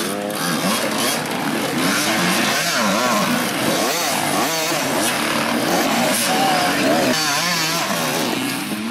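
Several enduro dirt bikes revving unevenly at low speed, engines rising and falling in pitch over one another as the riders work the throttle over log obstacles.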